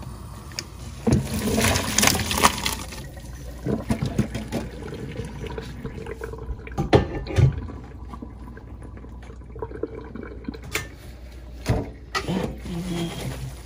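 Hot water and boiled rice vermicelli poured from a pot into a plastic colander, the water splashing and running away in a stainless steel sink, loudest in the first few seconds. It tails off into quieter running water with a few scattered knocks.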